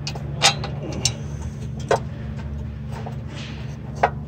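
Sparse sharp metal clicks and taps, four of them, as a bolt is fed in and worked into the pull-starter mounting on a 340cc Honda engine. A steady low hum runs underneath.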